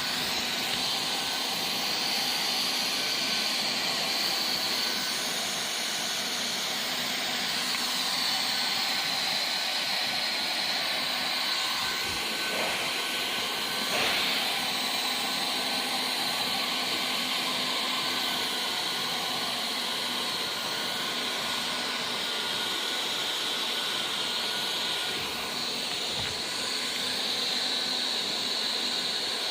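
Hot air gun blowing a steady hiss of heated air while heat-welding vinyl flooring.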